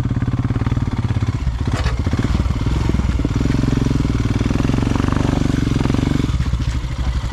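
Motorcycle engine running at low revs, steadily pulsing. It is given more throttle from about three seconds in and settles back just after six seconds, while the bike is helped up a concrete slab.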